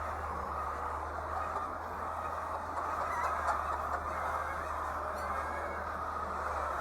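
A large flock of laying hens calling together in a poultry house: a steady, unbroken din of many overlapping clucks and squawks, with a low steady hum underneath.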